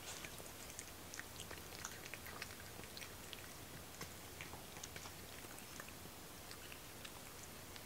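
Cat eating close to the microphone: faint, quick wet chewing clicks, busiest in the first three seconds and then sparser.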